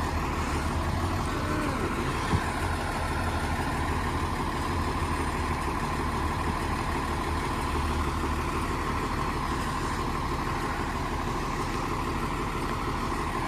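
Fire engine idling steadily, a low engine rumble with a steady high tone running over it. A single short knock about two seconds in.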